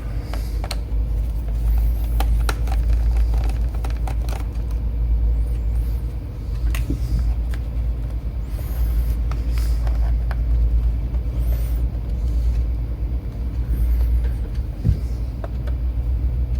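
Steady low rumble with scattered small clicks and knocks of hard plastic parts being handled while a laptop's back cover and optical drive are worked loose.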